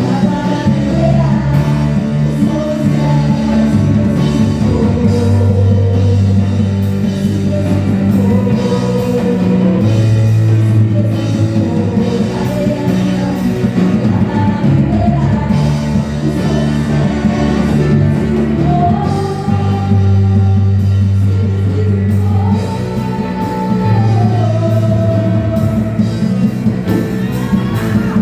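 A live rock-style worship band plays with a singer over it: drum kit, electric bass, guitar and keyboard under a sung melody.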